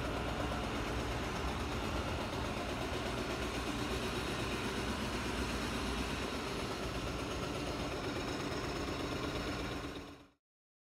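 Steady street noise with a low engine rumble, like a vehicle idling nearby, which fades out quickly to silence near the end.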